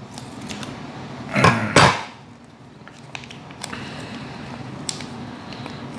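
Plastic sauce sachets being handled, snipped with scissors and torn open: scattered small clicks and rustles, with one louder short rustle about one and a half seconds in.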